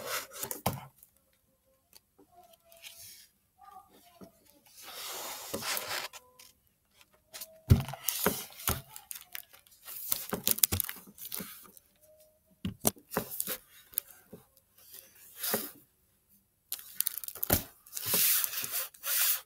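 A hardcover library book in a crinkly plastic jacket cover being handled: rustling and crinkling in several bursts, with a few knocks against the table.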